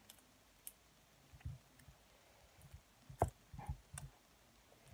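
Faint sticky clicks and small pops of very sticky slime being stretched and pulled apart by hand, with a few soft knocks; the sharpest click comes a little past the middle.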